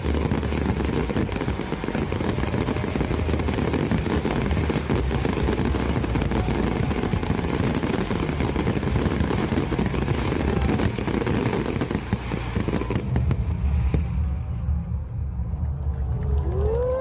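A fireworks barrage: many bursts and crackles overlapping densely, thinning out about thirteen seconds in to a low rumble.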